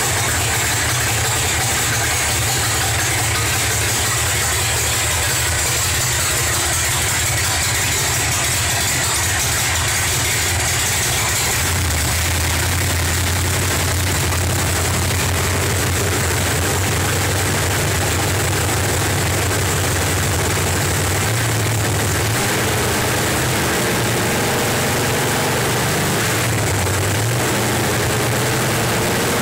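Carbureted V8 engine of a 1967 Mustang drag car idling steadily while its carburetor is adjusted with a screwdriver. The idle note changes about twelve seconds in and wavers again near the end.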